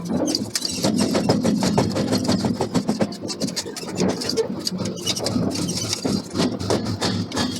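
Forging machinery running with a rapid, continuous clatter of metal knocks.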